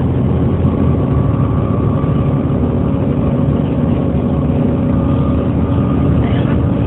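Volvo B7TL double-decker bus with a six-cylinder diesel running steadily: a heavy low engine drone with a faint steady whine above it.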